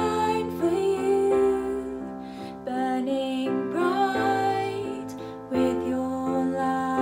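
Gentle worship song: a woman singing over soft keyboard chords.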